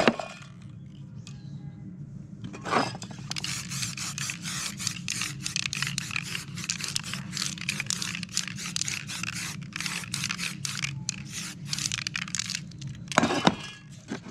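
Paper crackling and scraping in quick, irregular strokes as it is pressed and rubbed over wet spray paint. There are short loud hissing bursts from a spray-paint can right at the start, about three seconds in, and again near the end.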